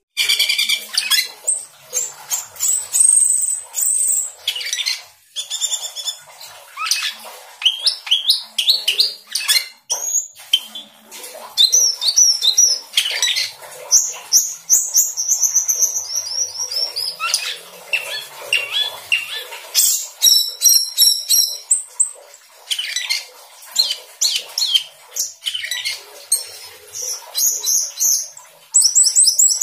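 Asian glossy starling singing a loud, varied song of high whistles, chattering notes and rapid trills, with short pauses. A long falling whistle comes about halfway through.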